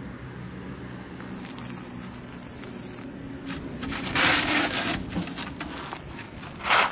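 Handling noise as a plastic tray of dry cat food is slid out of a wire cage cat trap: light clicks and scrapes, a louder crunching scrape about four seconds in lasting nearly a second, and a short sharp one near the end.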